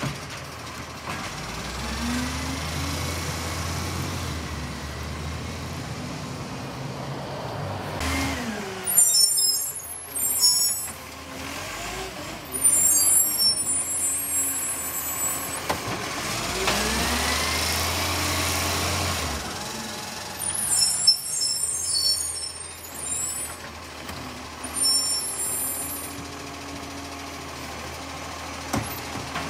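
Side-loader garbage truck's diesel engine running and revving up and down twice as the hydraulic arm lifts and tips wheelie bins. Several short bursts of hissing air and loud knocks come through between the revs.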